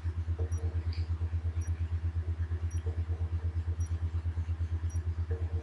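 Low, steady pulsing hum, about ten pulses a second, with faint high ticks about once a second.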